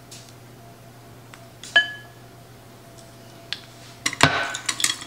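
Kitchen utensils clinking: a single clink with a short ring about two seconds in, then a clatter of plastic measuring spoons being set down on the counter against a metal spoon near the end.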